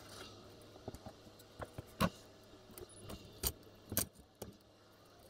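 Scattered light metallic clicks and clinks, about six in a few seconds with the sharpest about two seconds in, from tools and electrical hardware being handled while wiring a light fixture.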